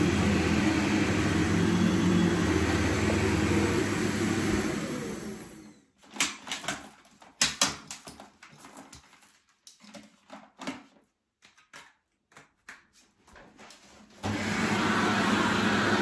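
Corded upright vacuum cleaner running, then switched off about five seconds in, its motor winding down with a falling pitch. Several seconds of scattered clicks and knocks follow as the hose and handle are handled, and about two seconds before the end the motor is switched back on and runs steadily.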